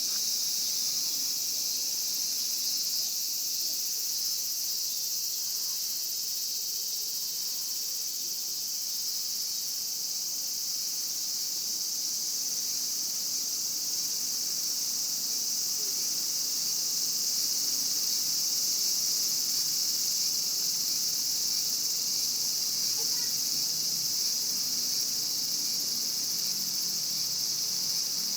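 Chorus of Japanese cicadas: a continuous, steady high-pitched buzzing drone with no breaks.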